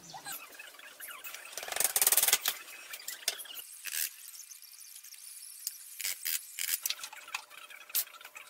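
Hand work on a pallet-wood box on a workbench: a loud, rough noise lasting about a second, about two seconds in, then a handful of sharp knocks and taps of wood and tools.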